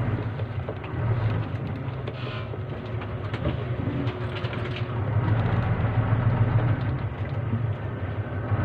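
Bus engine and road noise heard from inside the passenger cabin: a steady low drone that grows a little louder about five seconds in.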